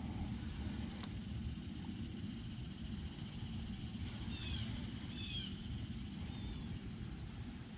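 Outdoor ambience: a low steady rumble, a faint high pulsing buzz like summer insects, and a few short falling bird chirps about four to five and a half seconds in.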